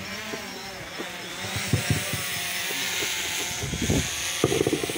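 A small engine running, its pitch drifting up and down, with scattered knocks and thumps.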